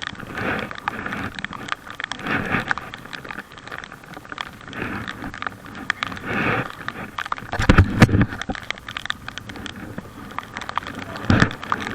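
Paddle strokes splashing in lake water beside a packraft, about one every two seconds, with two low thumps, one about eight seconds in and one near the end.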